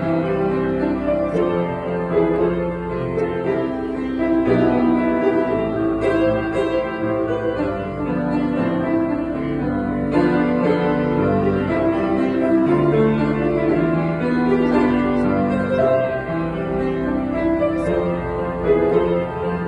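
Yamaha grand piano played solo, a continuous flowing piece with many sustained notes and chords.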